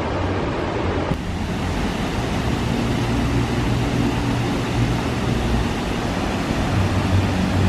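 Waterfall of white water pouring over a weir and tumbling down mossy rocks: a steady rushing noise with a low rumble underneath. It changes about a second in.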